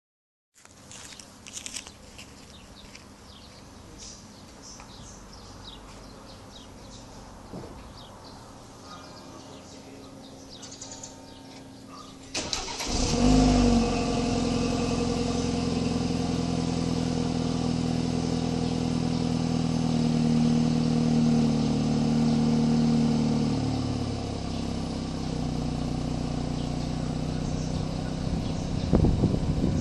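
BMW 328i (F30) turbocharged four-cylinder, on its stock exhaust, starting from cold: after some 12 seconds of low ambient sound with a few clicks, the engine cranks, catches with a brief rev flare, and settles into a steady fast cold idle. The idle drops slightly about 23 seconds in.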